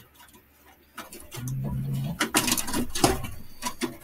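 Clicks and knocks of plastic and metal as power-supply cables and connectors are worked loose inside a Dell XPS 8940 desktop tower. Before them, about a second and a half in, comes a short low hummed note.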